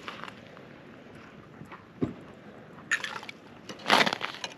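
Crunching of snow and ice: a soft thump about two seconds in, then two short, loud crunches about three and four seconds in.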